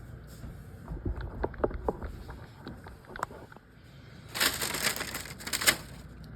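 Freshly baked sourdough loaf being handled: a few light taps and clicks, then about a second and a half of crisp crinkling and crackling, the loudest sound.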